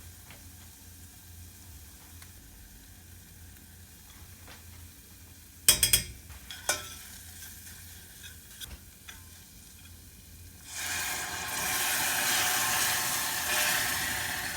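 Food frying in a hot pan. A few sharp clinks of utensils come about six seconds in, then from about eleven seconds a loud, steady sizzle sets in.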